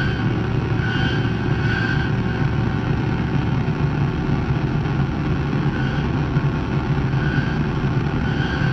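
Guitar effects-pedal noise: a dense, distorted drone with a steady low rumble. A brighter, higher tone swells in and out now and then over it.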